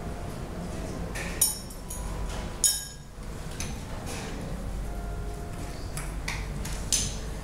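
Kitchen utensils and a stainless steel mixing bowl clinking during food preparation. There are two sharp ringing clinks about one and a half and two and a half seconds in, and lighter clicks near the end, over a steady low hum.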